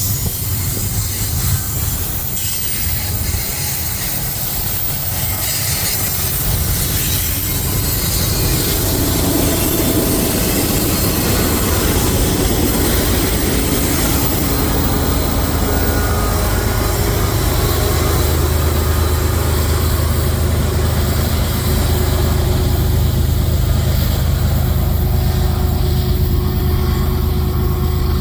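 Freight train cars rolling past, wheels rumbling on the rails with a faint high squeal. A steady low hum grows in about halfway through.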